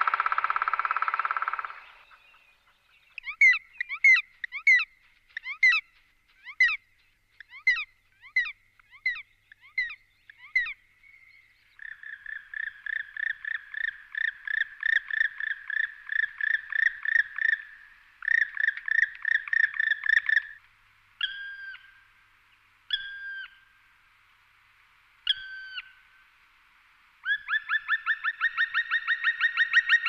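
Male black woodpecker calling, with no speech. After a short harsh burst at the start come a slow series of sharp notes, then a fast ringing run of repeated 'kwi-kwi-kwi' notes, three separate drawn-out calls that fall at the end, and another fast run near the end.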